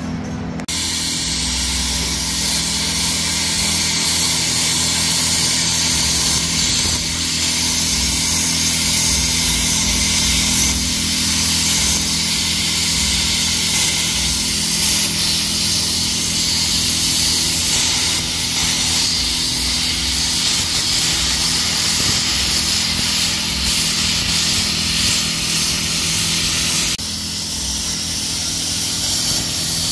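Steady, loud hiss of a cutting torch burning through the steel suspension brackets on a Jeep JL frame, with sparks flying. The sound dips briefly a few seconds before the end.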